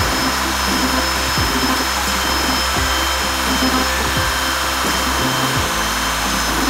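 CNC gantry router's spindle cutting solid wood, a steady whine with a hiss, under background music with slow, held bass notes.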